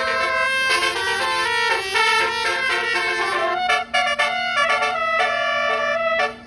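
Basuri telolet multi-note bus horn playing a quick melody, its notes changing several times a second with a brief break about four seconds in. A steady low hum runs beneath.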